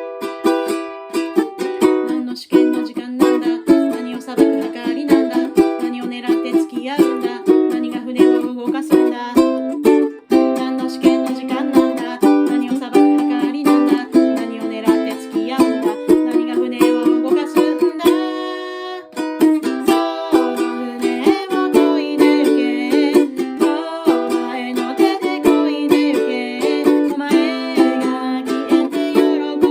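Ukulele strummed in a quick, steady rhythm, an instrumental passage without singing. About two-thirds of the way through, one chord is left to ring for about a second, then the strumming starts again.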